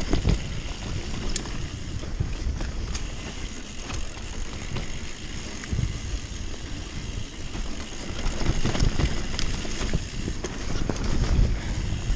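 Mountain bike descending a dirt forest trail at speed: wind rushing over the camera microphone and tyres rolling on dirt, with knocks and rattles from the bike over bumps every few seconds.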